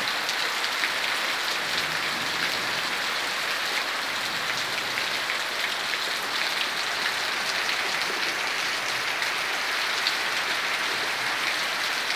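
Heavy rain falling steadily on foliage and a wet concrete yard: a constant hiss of rain dotted with countless small drop ticks.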